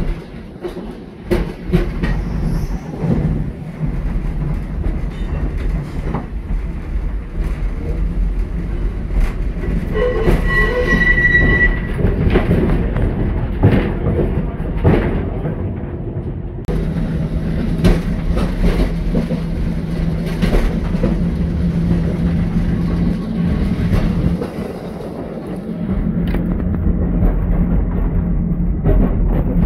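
Heritage Brisbane drop-centre electric tram running, heard from inside its open car: a continuous low rumble of wheels on rail with frequent clicks and rattles. There is a brief high squeal about ten seconds in, and a steady low hum from a little past halfway.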